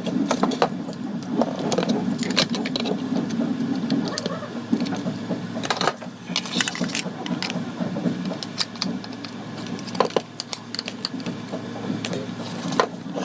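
A small motor running steadily, with many sharp clicks and rattles over it, loudest in the first few seconds.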